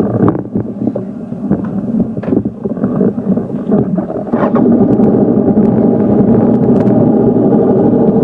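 Motorcycle engine running under way, heard from on board. It is uneven with a few sharp clicks at first, then settles about halfway into a steady, somewhat louder drone.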